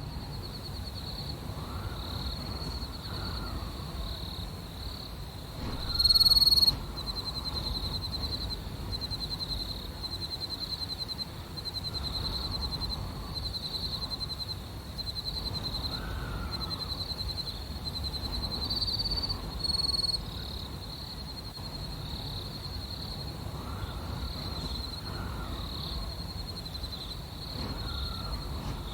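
Night ambience: crickets chirping steadily in a fast pulsing trill, over low wind that swells and fades every few seconds. A brief loud high call cuts in about six seconds in, and a shorter one near twenty seconds.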